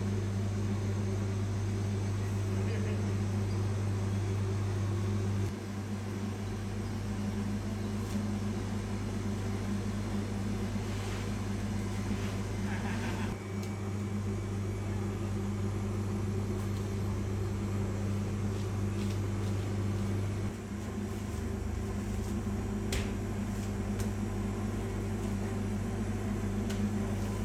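Steady low electric motor hum with a few overtones, dropping slightly in level three times. Faint crinkles of plastic cling film are heard while it is wrapped around a meat roll.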